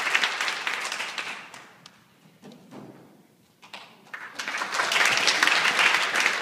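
Audience of young children clapping. The applause dies away about a second and a half in, a few soft knocks sound in the brief lull, and then the clapping picks up again and carries on.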